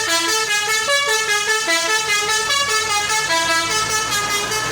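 A basuri telolet horn, the multi-tone melody horn fitted to Indonesian buses and trucks, playing a fast tune of short notes that step up and down without a break.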